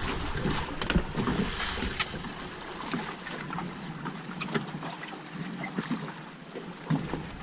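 Small boat drifting with its engine off: water lapping and slapping against the hull, with scattered light knocks and clicks from gear on board. Wind rumbles on the microphone for the first two seconds.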